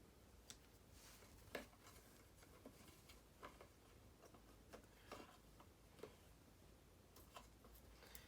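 Near silence with faint, scattered small clicks and ticks of electrical wire and hand tools being handled.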